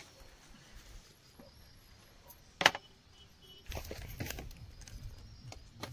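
A single sharp click about two and a half seconds in. From about three and a half seconds on, water poured from a plastic bottle splashes over potatoes in a steel plate.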